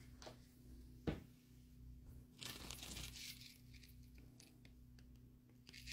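Faint crinkling and rustling of a clear plastic zip-top bag being handled, loudest for about a second near the middle, with a light knock about a second in.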